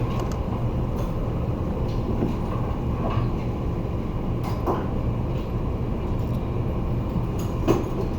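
Steady low background hum with a few light clicks and taps of handling, one sharper click near the end.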